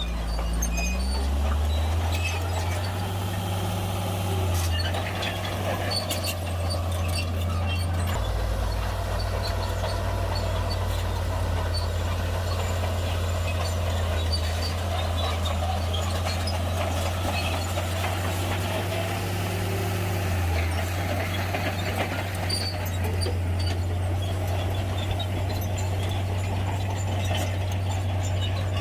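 Shantui bulldozer's diesel engine running steadily under load, a low drone that dips briefly in pitch a few times as the load changes.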